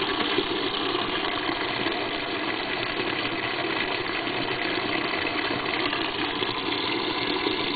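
Top-loading washing machine's waterfall fill: a steady stream of water pouring from the inlet into the tub during the rinse.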